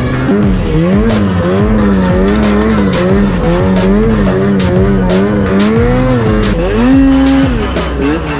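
Arctic Cat snowmobile engine revving up and down over and over as the sled works through deep powder, its pitch climbing sharply near the end. Music with a steady beat plays underneath.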